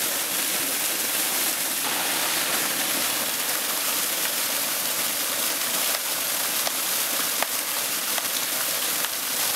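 Small waterfall pouring steadily into a shallow rocky pool, a constant rushing and splashing of falling water.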